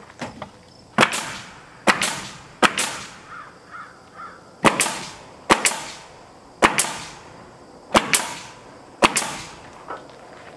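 Pneumatic nail gun firing about eight times, each a sharp crack with a brief hiss, spaced roughly a second apart with a short pause midway, as boards are nailed up overhead.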